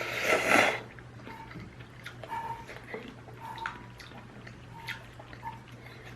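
Mukbang eating sounds: a loud slurp of ramen noodles lasting under a second at the start, then quiet chewing with soft, scattered mouth clicks.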